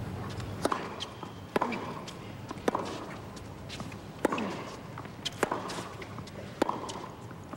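Tennis baseline rally: sharp pops of racket strings hitting the ball roughly once a second, with lighter ball bounces and footwork on the court between them.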